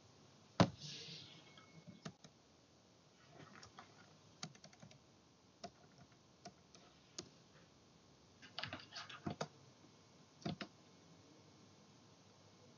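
Irregular clicks and taps of a computer keyboard and mouse, with one sharp click just after the start and a quick flurry of them about two-thirds of the way through.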